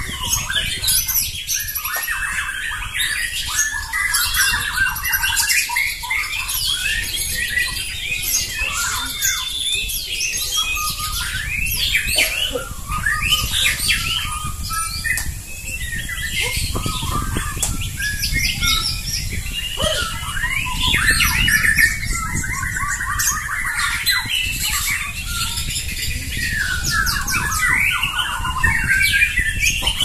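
Several caged white-rumped shamas (murai batu) singing against each other in a song duel: a dense, unbroken tangle of rapid trills, whistles and harsh notes from many birds at once.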